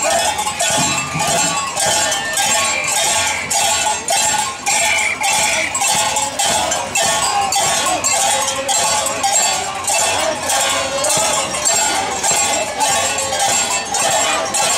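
Andean carnival dance music: a steady beat of drum strokes and metallic jingling about three a second, with a melody wavering above it.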